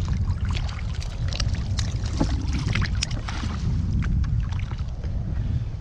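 Wind rumbling on the microphone, with water splashing and dripping against the side of an inflatable boat in many short sharp splashes as a hooked fish is hauled out of the sea by hand.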